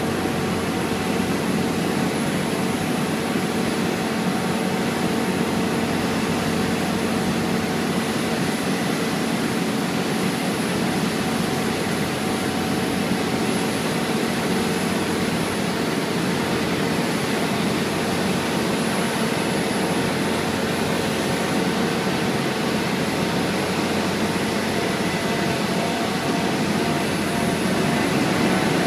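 Steady drone of an asphalt paver's diesel engine and material-handling machinery running at work, a constant hum with several steady tones and a faint high whine.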